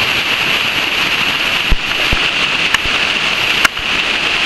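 Shallow creek water rushing over a natural rock water slide: a steady, loud rush, broken by a few brief knocks.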